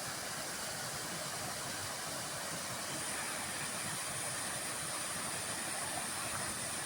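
Steady rushing of running water from a forest stream or waterfall, an even hiss with no break. A faint high steady tone joins about three seconds in.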